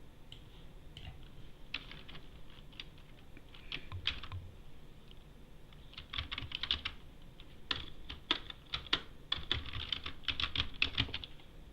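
Typing on a computer keyboard: a few scattered keystrokes at first, then quick runs of keystrokes in the second half.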